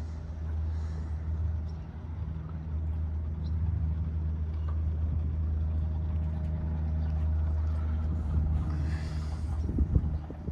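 A sailboat's electric motor driving the boat, a steady low drone. A few short knocks sound near the end.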